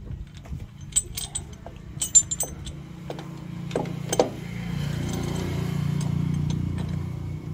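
Steel brake plates and a brake disc clinking and knocking against each other and the housing as they are fitted by hand into a Powertrac tractor's brake assembly. Sharp metallic clinks come about one and two seconds in, and duller knocks near four seconds. A low steady hum swells from about five seconds in.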